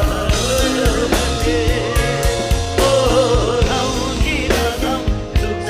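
Background song with a singing voice over drums, bass and guitar, at a steady beat.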